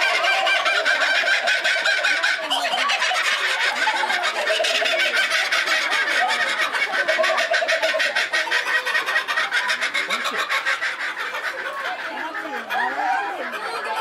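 Two laughing kookaburras calling together in a loud, rapid, rhythmic laughing chorus of 'ha-ha-ha' and 'ho-ho-ho' notes, easing off a little near the end.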